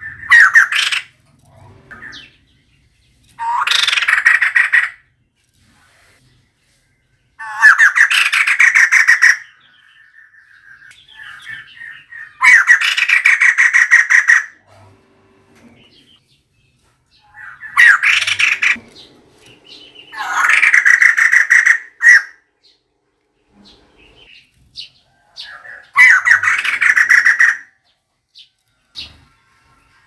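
Female white-crested laughingthrush calling: about seven bursts of rapid, harsh chattering notes, each lasting one to two seconds, with short gaps between them.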